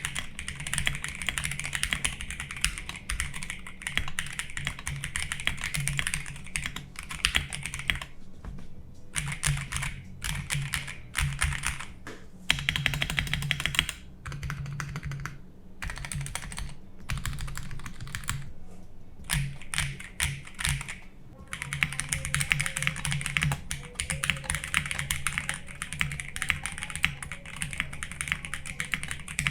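Fast typing on a Royal Kludge RK68 mechanical keyboard in a custom acrylic case, with JWICK Black switches and PBT keycaps: a dense run of key clacks broken by a few short pauses.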